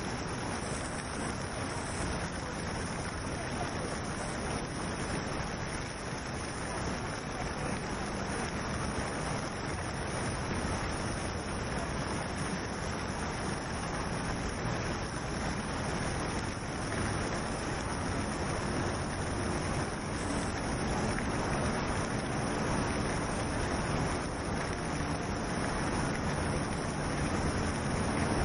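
Fountain jet streaming steadily into its pool, a continuous splashing of falling water.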